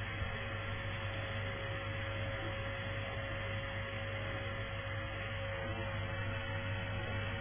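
Vacuum cleaner running steadily, a constant motor hum with a steady whine over it.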